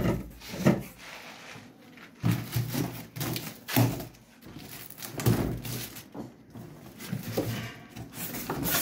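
Pipe fittings being handled and sorted: irregular knocks, clacks and rustles, the loudest right at the start.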